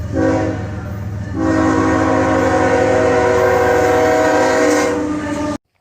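Nathan K5HL five-chime air horn on a CSX GE GEVO locomotive sounding a short blast, then a long held blast, over the low rumble of the passing train. The sound cuts off abruptly near the end.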